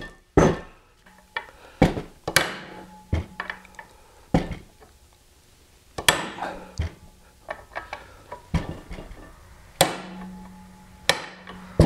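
Ball-peen hammer tapping a new oil seal down into a motorcycle swing-arm pivot bore: about a dozen sharp metal taps at uneven intervals, some leaving a brief ring.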